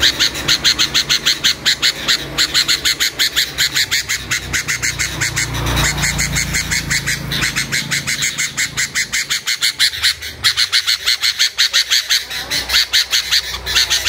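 Caged songbird chirping in a fast, steady series of short, high-pitched chirps, about five a second, with brief breaks about six and ten seconds in.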